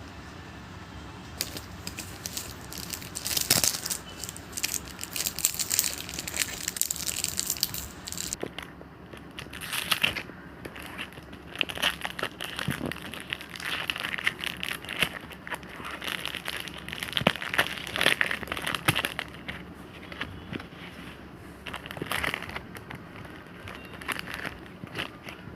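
Plastic and paper packaging of a Pokémon card pack crinkling and crackling as it is handled and opened, in irregular rustles. The first several seconds are sharper and hissier; after that it comes in softer bursts of rustling.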